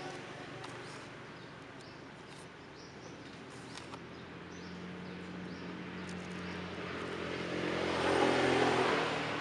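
A motor vehicle's engine passing by, growing louder to a peak about eight seconds in and then fading. Faint crackles of plastic wrap being peeled off a rooted air layer come a few seconds in.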